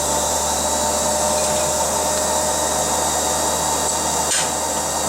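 Coal forge's electric blower running steadily, a continuous rush of air with a constant hum. A single short click about four seconds in.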